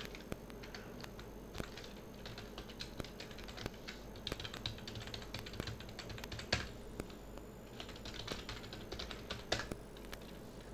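Typing on a computer keyboard: a run of separate key clicks with short pauses, one keystroke a little past halfway louder than the rest.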